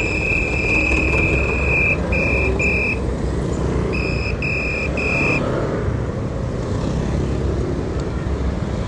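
A shrill whistle, as used for directing traffic, blown in one long blast that ends about two seconds in, then two short blasts, a pause, and three more short blasts. Motorcycle and car traffic rumbles steadily underneath.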